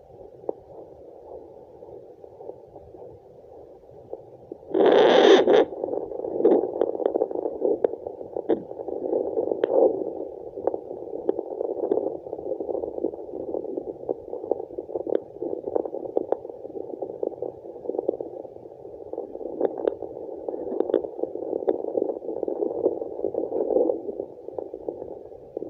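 Fetal Doppler picking up placental blood flow: a muffled rushing noise through the Doppler's small speaker, with scattered crackling clicks and one loud burst about five seconds in.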